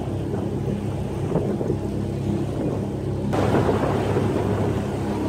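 Tour boat's engine running steadily with a low hum as the boat moves along the river. About three seconds in, a louder rushing noise sets in over it.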